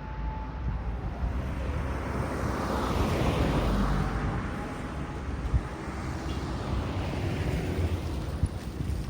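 A vehicle passing by, its noise rising to a peak about three to four seconds in and then fading.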